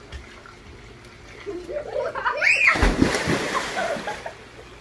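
A short shout, then a heavy splash about three seconds in as a person plunges into a swimming pool, with water churning for about a second after.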